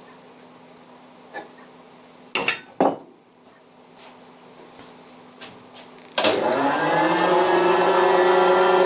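A few clicks and two loud knocks, then about six seconds in an electric workshop machine is switched on: its motor spins up over about a second and settles into a loud, steady whine.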